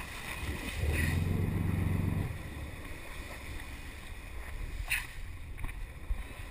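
Water splashing and rushing at a boat's side as a hooked blue marlin thrashes alongside, over a low rumble that swells for about a second and a half near the start. A single sharp knock about five seconds in.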